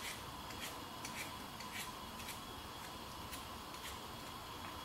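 Quiet kitchen room tone: faint soft ticks about two a second over a steady hum.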